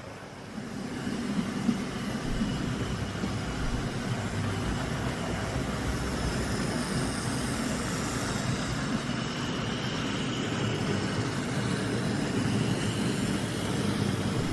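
Airfix OO gauge LMS 4F model locomotive running on a layout: the tender-drive electric motor whirs steadily, with a faint whine and the rumble of wheels on track. It builds about half a second in, then runs at an even level.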